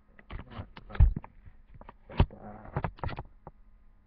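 A rapid, irregular series of clicks and knocks from something being handled, with two louder thumps about one second and two seconds in and a brief rustle between them.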